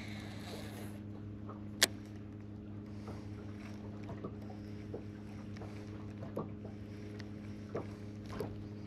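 A steady low hum under faint, irregular clicks and ticks of rod and reel as a lure is worked, with one sharp click about two seconds in.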